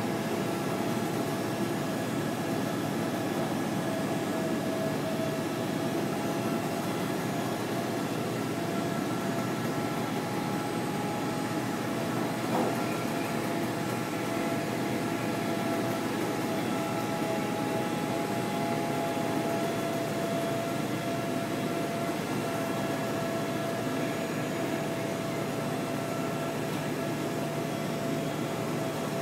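Offset plate processor of a computer-to-plate line running: a steady mechanical hum with a few constant whining tones as its rollers carry a plate through and out onto the stacker.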